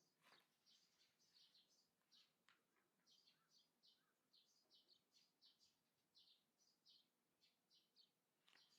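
Faint chirping of small birds: short high notes repeated two or three times a second without pause, with a few soft clicks among them.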